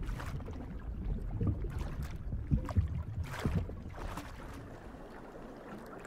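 Low, rumbling water ambience with a few soft swishes of moving water, as on a sound bed for underwater footage.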